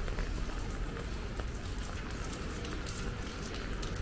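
Steady rain falling, with many separate drops ticking close by over a low steady rumble.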